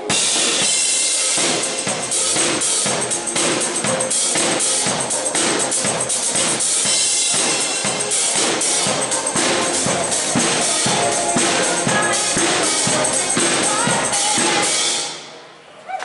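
A pop song played live through a PA, built on a steady drum-kit beat. The music stops near the end.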